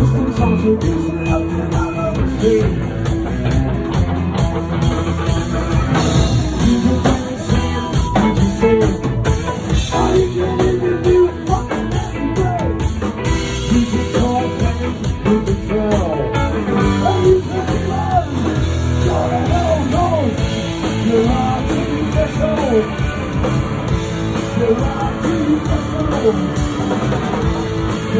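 A live rock band playing loud: distorted electric guitars over a drum kit and bass, heard through the club's PA, with no break.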